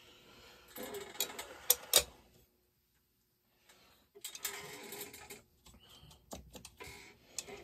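Small parts handled at a workbench: rustling and fiddling noise with sharp clicks, two loud ones about two seconds in, broken by a second or so of near silence, then more rustling and scattered clicks.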